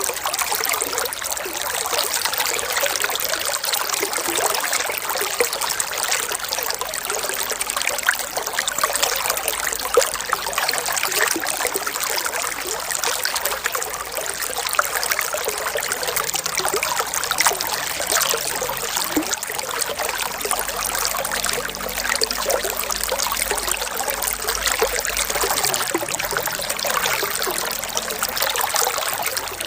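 Running water trickling steadily, a dense patter of small splashes with little low rumble and no pauses.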